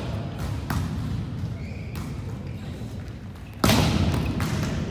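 Volleyball rally in a large gym: the ball is struck a couple of times, then a much louder hit about three and a half seconds in rings on through the hall.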